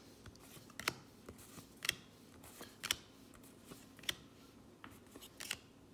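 Baseball trading cards being flipped through one at a time, with a short card snap or flick about once a second.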